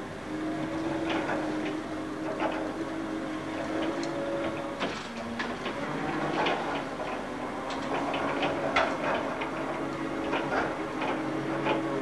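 AutoVacC robotic industrial vacuum cleaner running as it drives itself: a steady motor hum whose pitch dips briefly about five seconds in, with irregular clicks and ticks throughout.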